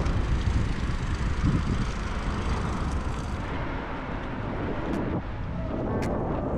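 Wind rushing over a bike-mounted camera's microphone, with road rumble from riding a bicycle over paving. A few sharp clicks come near the end.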